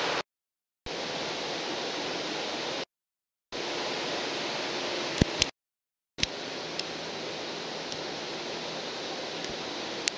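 Steady hiss from a Tokyo Metro 05 series electric train standing at the platform with its equipment running. The hiss is chopped into short pieces by three abrupt dead-silent gaps, with clicks where each piece starts and stops.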